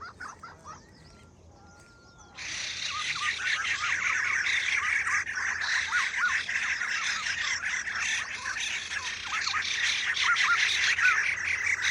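A dense chorus of many birds chirping and calling over one another. It thins to a faint background for the first two seconds, then comes back abruptly about two and a half seconds in.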